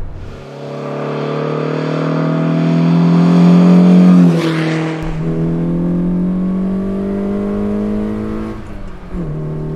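Lotus Elan's twin-cam four-cylinder engine accelerating hard, its pitch rising steadily as the car approaches and passes close by about four seconds in. Then it is heard from inside the cabin pulling on, with a brief drop in revs at a gear change near the end.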